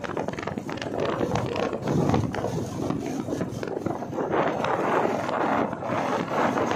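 Wind buffeting the microphone of a camera held by a passenger on a moving motorbike, an uneven rushing and fluttering with the bike's road noise underneath.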